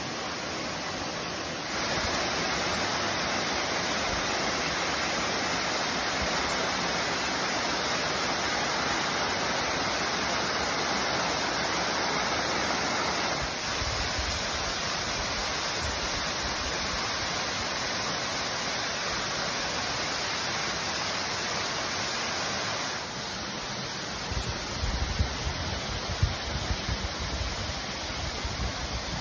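Waterfall rushing: a steady wash of falling water that steps louder about two seconds in and drops back a little twice later on. Near the end, a few low thumps on the microphone.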